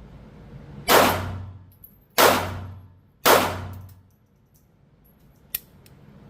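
Three handgun shots about a second apart, each ringing off in an indoor range's echo, then a faint metallic click near the end.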